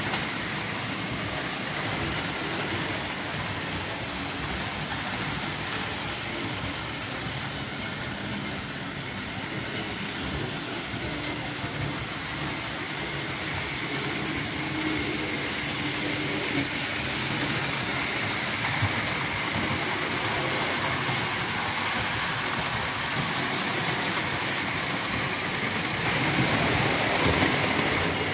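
Märklin H0 model trains running on metal track: a steady rolling rattle of wheels with a faint motor whine, growing a little louder near the end as a steam locomotive with its coaches passes close.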